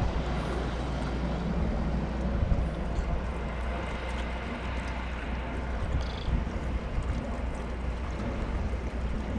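Wind rumbling on the action camera's microphone over a steady wash of sea water against shoreline rocks.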